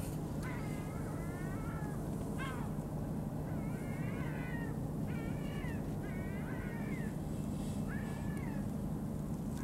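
An animal calling repeatedly: about six drawn-out, meow-like calls, each with a slight rise and fall in pitch, one of them a short sharp downward sweep, over a steady low hum.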